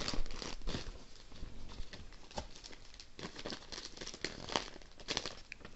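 Paper and cardboard rustling as hands fold back a shipping box's flaps and move a loose sheet of paper, heard as irregular short crackles and light taps.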